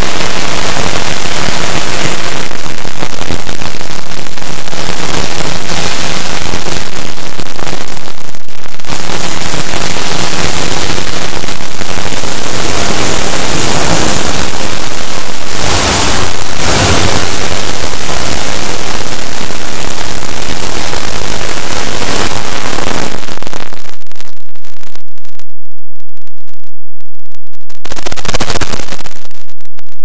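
Extremely loud, heavily distorted noise like static, with no clear tone or voice in it. It dips briefly twice about halfway through, and the lower part cuts out in stretches near the end.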